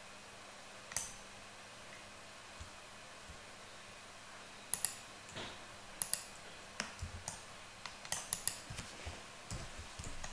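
Computer mouse and keyboard clicks while operating 3D software: a single click about a second in, then a few scattered clicks, and a quicker run of clicks in the last few seconds, over a faint steady hiss.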